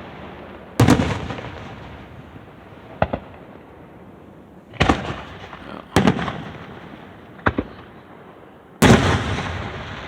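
Aerial fireworks shells bursting over a lake in a series of about six booms and sharp cracks, each trailing off in a rolling echo. The loudest and longest burst comes near the end.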